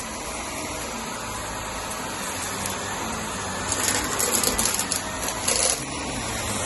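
Vacuum cleaner running over a rug, with two brief louder, hissier surges about four and five and a half seconds in.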